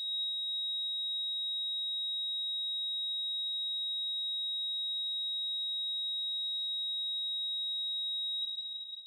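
Steady high-pitched electronic tone held at one pitch throughout, fading out near the end.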